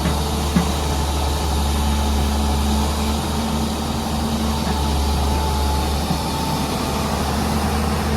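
Heavy diesel earthmoving machinery, an excavator and its tipper truck, running steadily with a deep, even drone. A brief knock sounds about half a second in.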